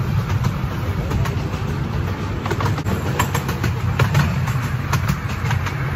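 Miniature railway train running along its track: a steady low rumble from the carriages with frequent irregular clicks and rattles from the wheels and rolling stock.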